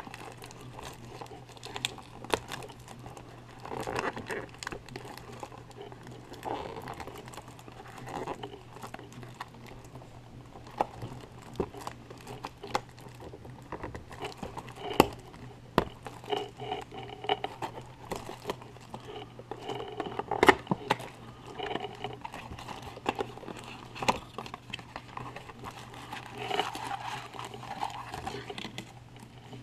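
Thin plastic shrink-wrap crinkling and tearing as it is peeled off a cardboard trading-card box, with many small sharp crackles. Near the end the box's cardboard flap is pulled open and the wrapped card packs inside are handled.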